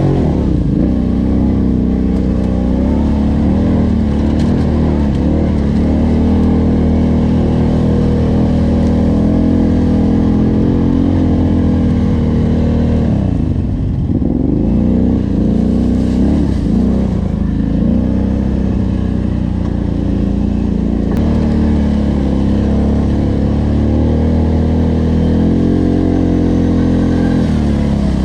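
Engine of an off-road dirt bike or quad running hard and steady while being ridden. About halfway through, the revs drop and climb back several times, and they dip again near the end.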